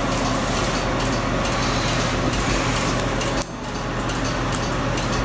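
Steady background hiss with a low electrical hum, dropping suddenly about three and a half seconds in and then carrying on.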